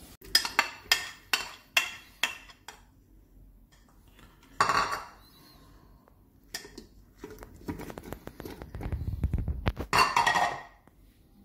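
Dishes clinking sharply, about seven times in quick succession near the start. Then bowls knock and fruit pieces are tipped from bowls into a plastic blender jug, with a louder clattering rush near the end.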